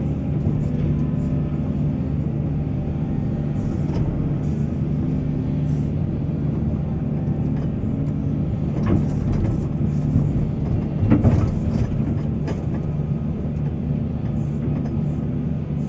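Heavy diesel engine of a mining excavator running steadily under load, with a couple of short knocks about 9 and 11 seconds in.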